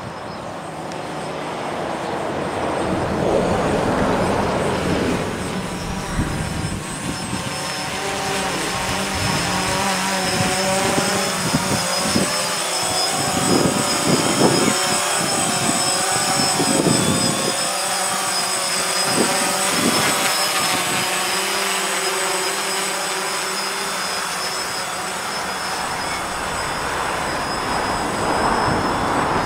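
DJI Phantom quadcopter's electric motors and propellers whirring as it flies, the pitch of the whine shifting up and down as it manoeuvres.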